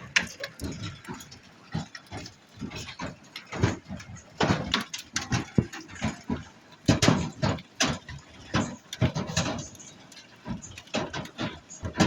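Hailstones of about 1 to 1.5 inches striking a trailer's roof and walls, heard from inside as a dense, irregular clatter of hard knocks of varying strength.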